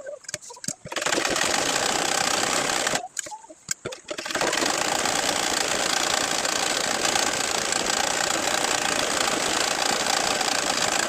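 Sewing machine stitching at speed. It runs for about two seconds, stops for a little over a second, then starts again and runs steadily.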